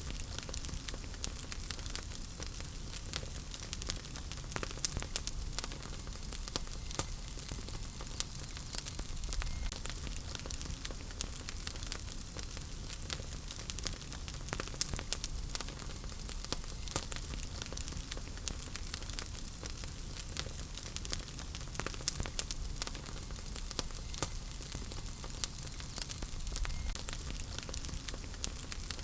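Wood fire burning in a fireplace: steady crackling and popping of burning logs over a low rumble of flames.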